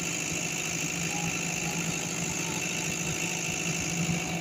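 A 30 kVA generator set running steadily, heard close up: an even engine hum with a faint steady high whine on top.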